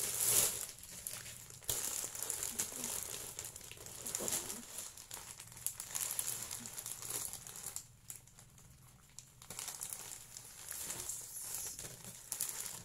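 Plastic packaging crinkling and rustling in irregular bursts as a plastic mailer bag is handled and opened, with a brief lull about two-thirds of the way through.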